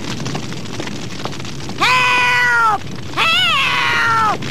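An elderly woman crying 'Help!' twice, each a long, wavering, drawn-out cry, over the steady crackle of a house fire.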